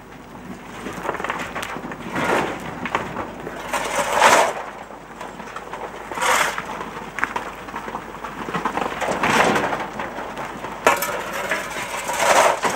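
Coal shovels scraping into a pile of coal lumps and tipping each load, a gritty scrape and clatter of coal every two seconds or so.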